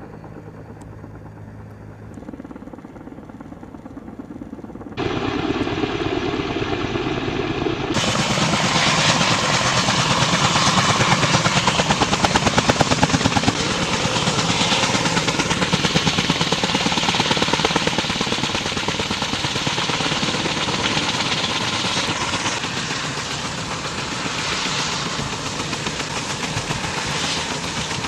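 Kaman K-MAX helicopter's intermeshing twin rotors and turbine engine running. It is faint and steady at first, then much louder and closer from about eight seconds in, with a fast, continuous rotor chop.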